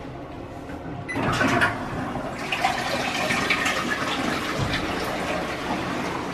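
Electronic toilet flushing: a sudden rush of water about a second in, loudest at first, then a steady run of water as the bowl refills.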